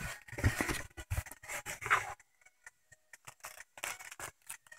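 A cardboard box being opened and its contents handled: scraping and rustling of cardboard, paper and wrapped snacks. It is busy for about two seconds, then only a few faint crinkles.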